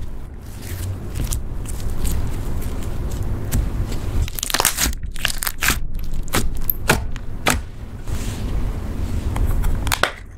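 Red slime being kneaded and pressed by hand on a wooden tabletop: sticky squishing with many short, sharp clicks and pops, bunched together about halfway through.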